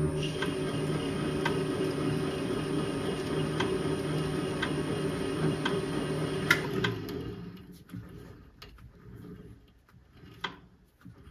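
Small benchtop lathe running at low speed, a steady motor hum with a regular tick about once a second, as the final pass of a 1 mm-pitch internal thread is cut. About six and a half seconds in there is a sharp click and the lathe winds down and stops, followed by light handling clicks and a sharp knock as the chuck is turned by hand.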